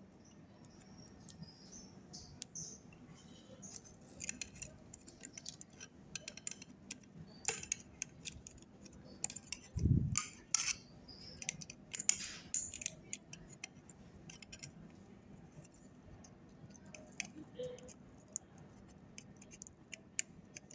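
Faint irregular clicks, taps and scrapes of a metal hand tool working at a power-supply circuit board as components are worked off it, with one dull thump about ten seconds in.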